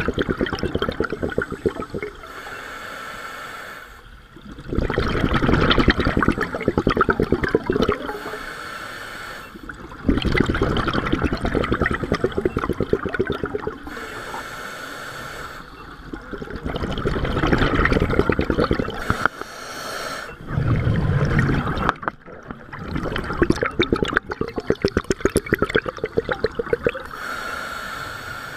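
Scuba diver breathing through a regulator underwater: each exhalation is a loud bubbling, crackling rush lasting a few seconds, alternating with quieter stretches of regulator hiss, over several breaths.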